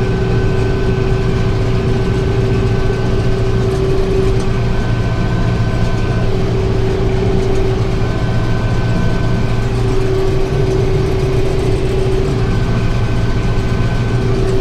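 Farm tractor engine running steadily while pulling and powering a round baler through a windrow of hay, with a thin high whine that comes and goes.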